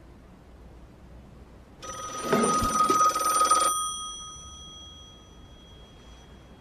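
A desk telephone's bell rings once for about two seconds, starting about two seconds in. It stops sharply and the bell's ring dies away over the following couple of seconds.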